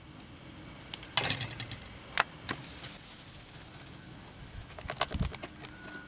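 Brass scale pan handled and wiped out with a cloth by gloved hands: soft rubbing with a few sharp metallic taps and clicks, around one to two and a half seconds in and again about five seconds in.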